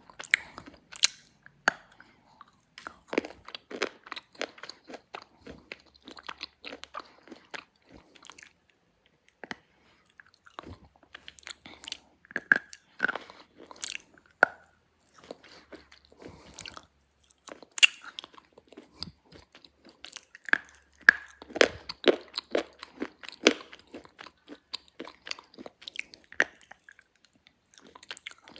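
A person biting and chewing slate pencil (A1 brand): sharp cracking bites and gritty crunching chews in irregular clusters, with a brief lull about a third of the way in.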